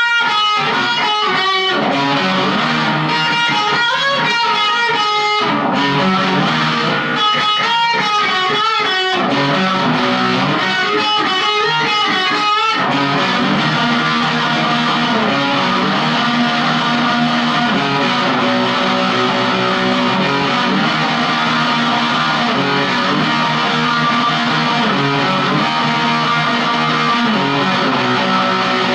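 Electric guitar distorted by a Marshall Jackhammer JH1 pedal, a Gibson Les Paul Studio played into a Marshall MG15CD amp's clean channel. It plays picked phrases broken by short pauses, then changes to dense, continuous riffing about 13 seconds in.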